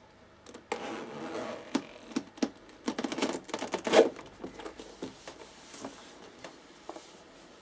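Quilted leather Chanel boot being pulled off a metal calf-stretching form: leather rustling and scraping against the metal, with irregular knocks and clicks, loudest about four seconds in.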